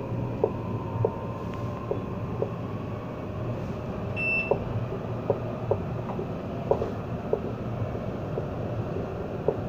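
Interior of an Alstom Citadis tram under way: a steady rumble with a faint motor whine rising slowly as it gathers speed, and irregular light clicks from the wheels on the track. A brief high beep sounds about four seconds in.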